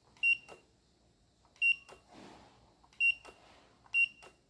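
Electronic buzzer on a car-wash timer board beeping four times in short high beeps, each followed by a faint click, signalling that the paid time has run out.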